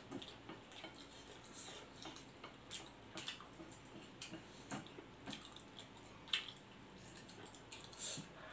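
Quiet close-up eating sounds of a man chewing instant noodles: irregular wet mouth smacks and small clicks, with one sharper click about six seconds in.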